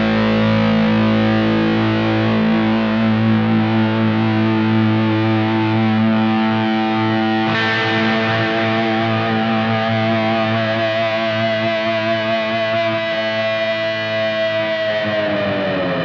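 Distorted electric guitar through a Blackstar HT Club 50 amp head, with delay added, playing long sustained notes. A held note rings at the start, a new one is struck about halfway through and sustains, and its pitch slides down near the end.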